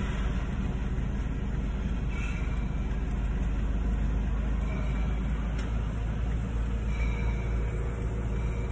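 A Toyota's engine idling, heard from inside the cabin as a steady low rumble.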